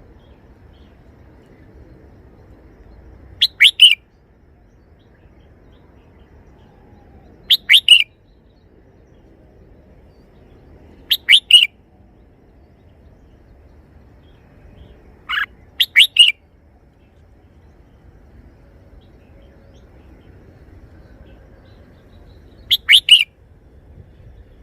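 Red-whiskered bulbul singing a short three-note phrase five times, with pauses of several seconds between phrases.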